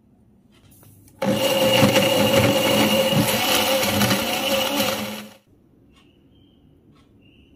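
Countertop blender running at full speed for about four seconds, blending a thick batter. It switches on abruptly about a second in and cuts off with a brief wind-down past the middle.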